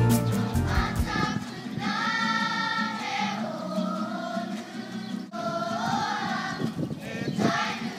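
A large group of children singing together. A music track from the preceding segment fades out in the first second before the singing takes over.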